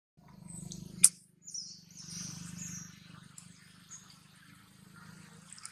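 A single sharp click about a second in, then a run of high chirping calls over a low steady hum.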